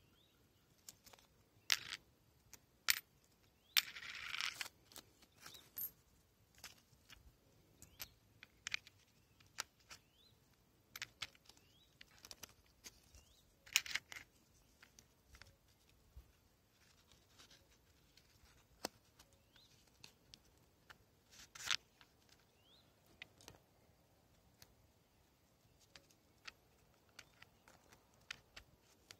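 Hands handling a small wooden wallet: scattered light clicks and taps as euro coins are set into its compartment and cards and notes are slipped in, with a brief rustle about four seconds in.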